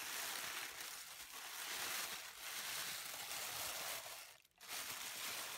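Tissue paper crinkling and rustling as hands unfold it from a cardboard box, with a brief pause about four and a half seconds in.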